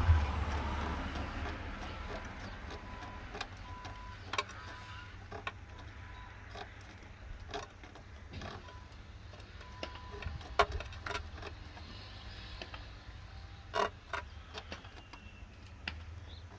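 Irregular light clicks and knocks from hands working among parts behind an engine, over a low rumble. A faint thin tone comes and goes a few times.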